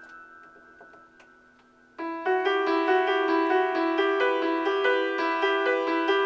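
Improvised keyboard music: a held chord fades away for about two seconds, then a quick run of repeated notes comes in loudly and continues.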